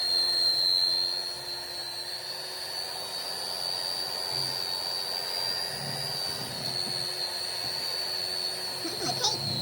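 Electric mixer running steadily on cookie dough, a constant motor whir with a high-pitched whine. A voice is briefly heard near the end.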